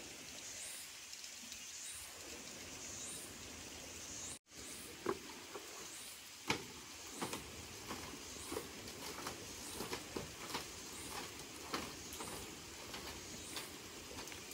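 Wood fire crackling and popping irregularly under a steady hiss, the pops starting about five seconds in. A faint high chirp repeats about once a second.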